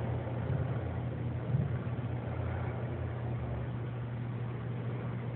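A steady low hum of a running motor over an even hiss, a little louder in the first second and a half.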